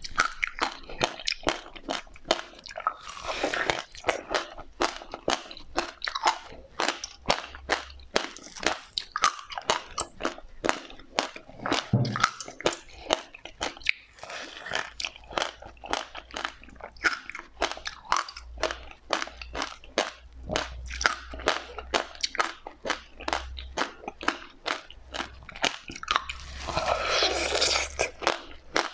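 Close-miked eating of a soft bun topped with passion fruit pulp: rapid crunching and chewing of the seeds, several crunches a second, with slurping of the juicy pulp now and then, longest near the end.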